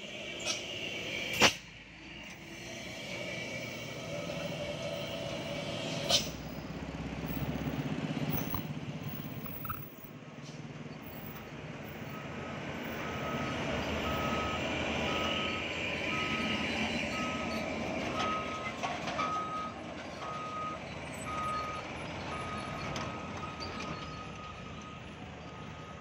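Heavy diesel trucks running and moving slowly past, their engine noise swelling and fading. About halfway through, a vehicle's reversing alarm starts beeping steadily, about one and a half beeps a second. There are two sharp knocks, one about a second and a half in and one about six seconds in.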